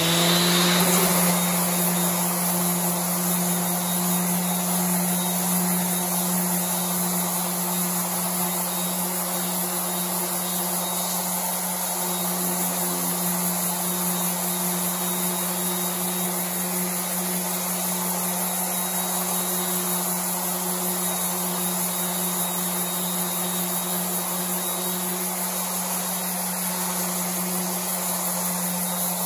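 Craftsman random orbital sander with 60-grit paper sanding the face of a hardwood cutting board to take out knife cuts. The motor winds up to speed in the first second, then runs at a steady, loud hum over the hiss of the paper on the wood.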